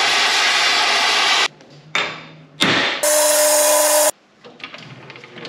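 Workshop metalworking tool sounds cut together in quick succession. A loud harsh noise stops abruptly after about a second and a half, a sharp strike rings off, and a second loud noise carrying a steady whine lasts about a second. Faint clicks follow.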